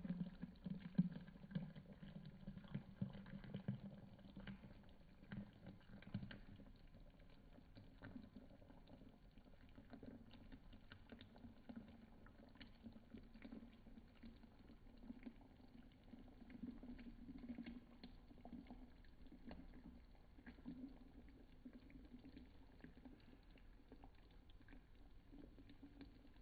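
Frothy bullet coffee pouring faintly in a thin steady stream into a glass mug, pattering into the foam; a little louder in the first several seconds, then steady.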